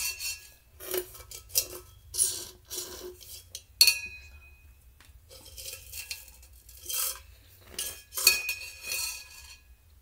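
A drink bottle being handled: its lid and body clink and knock repeatedly as it is opened, lifted to drink from and set down.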